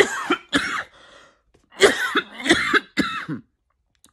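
A man coughing in two rapid fits: three coughs close together, a short pause, then a run of about six more. It is a deliberate imitation of an uncontrollable coughing fit.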